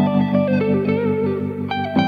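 Background music: a stepping guitar melody over sustained low chords, with a chord change near the end.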